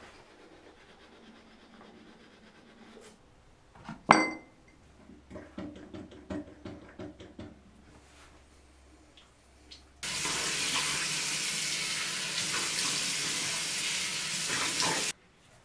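A single sharp clink with a short ring about four seconds in, followed by a few faint knocks; then a bathroom sink tap runs into the basin for about five seconds and stops abruptly.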